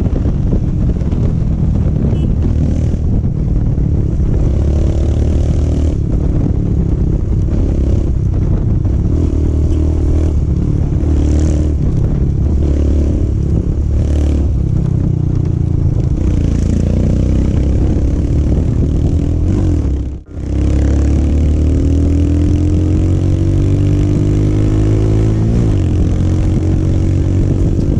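Royal Enfield Himalayan single-cylinder engine running through an aftermarket Akrapovic exhaust while riding, its pitch rising and falling as the throttle opens and closes. The sound cuts out for a moment about twenty seconds in.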